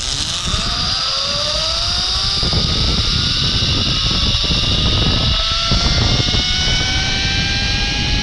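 Zipline trolley's pulley wheels running along the steel cable at speed, a whine of several tones rising steadily in pitch as the rider gathers speed, over heavy wind rumble on the camera microphone.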